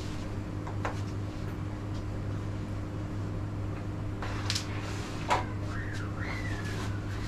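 Carrom striker flicked across a wooden carrom board and clacking sharply into the coins about five seconds in, just after a lighter click. A steady low hum runs underneath.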